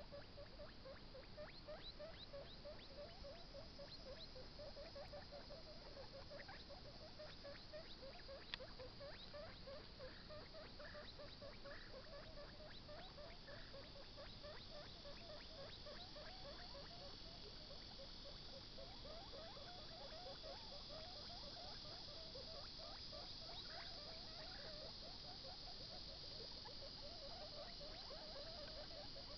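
Baby guinea pig chewing carrot: faint, rapid crunching bites, several a second, with one sharper click about eight seconds in.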